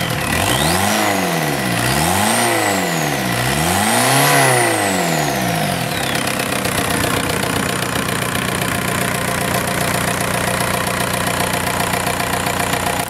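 VW 1.9 TDI ALH four-cylinder turbodiesel running on a test stand, revved up and back down three times with the gas pedal. About six seconds in it settles into a steady diesel idle.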